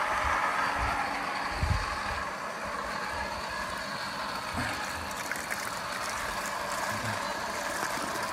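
A pump running steadily, test-pumping water from a freshly driven Abyssinian well point, with a few low thumps on the microphone.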